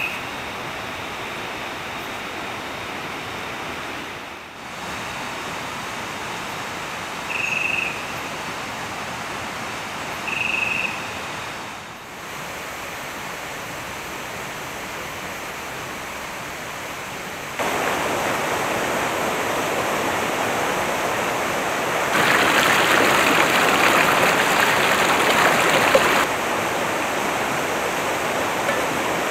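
Steady rushing of a rocky river and its small cascades. It steps up in loudness about two-thirds of the way through and is loudest for a few seconds after that. Three short high chirps come in the first half.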